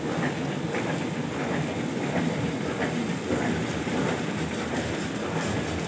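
Paper plate lamination machine running: a steady, dense mechanical rattle and clatter.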